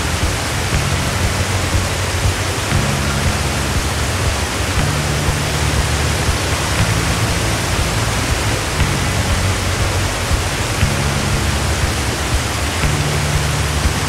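Steady rush of water from a tall waterfall pouring into a rocky gorge and the rapids below. Background music of slow, held low notes that change about every two seconds plays over it.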